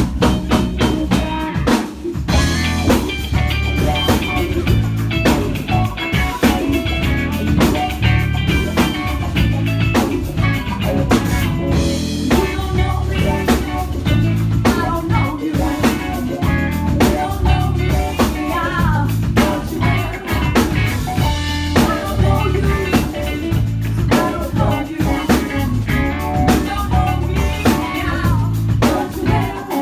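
A live rock band playing with drum kit, bass and electric guitars, keeping a steady beat.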